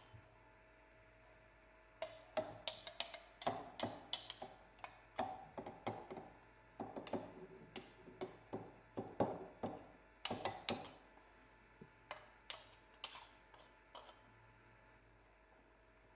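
A metal spoon tapping and scraping against an immersion blender's metal foot and a glass jug, knocking off blended tangerine puree: a string of light, irregular clicks and taps starting about two seconds in and thinning out after about eleven seconds.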